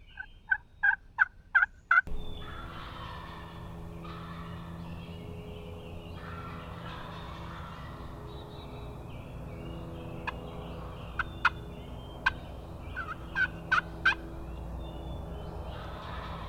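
Wild turkey calls: a quick run of six yelps in the first two seconds, then a few short, sharp clucks and yelps about ten to fourteen seconds in, over a steady low hum.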